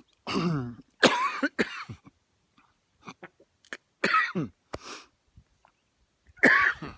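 A man coughing hard in several bouts, with throat clearing between them. He thinks a peanut went down the wrong pipe.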